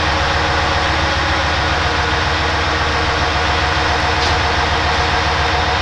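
Diesel engines of railway track maintenance machines (a Plasser & Theurer 08-32 Duomatic tamper and a USP 2005 SW ballast regulator) idling, a steady low throbbing rumble.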